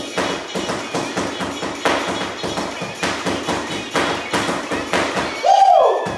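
Spatulas drumming on a pillow in a quick, even rhythm of taps and soft thuds, over a song with a steady beat. Near the end a loud sliding vocal whoop rises and falls.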